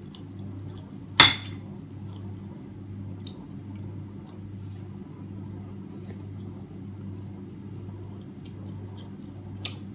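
A metal spoon strikes a ceramic dish once about a second in with a sharp clink that rings briefly, followed by a few faint scattered clicks of cutlery and eating and a sharper click near the end, over a steady low hum.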